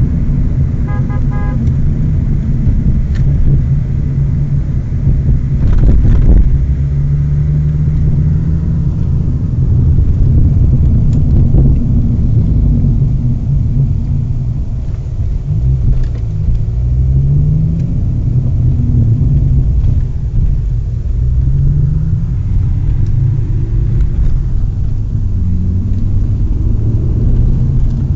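BMW M6's V10 engine pulling at moderate revs, with several short rises in pitch as it accelerates through the gears, over tyre and road noise. A short run of quick beeps sounds about a second in.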